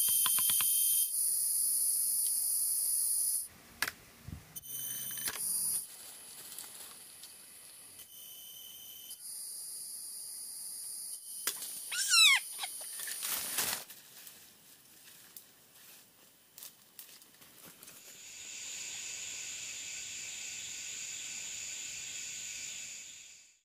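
Loud, high-pitched, steady buzzing of forest insects that cuts off and comes back abruptly several times, with a bird's sharply falling call about twelve seconds in.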